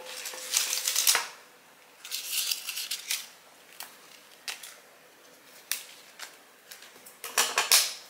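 Hydrangea stems and leaves rustling and crackling as they are handled and dead leaves are pulled off by hand, in three short bursts with a few sharp clicks between.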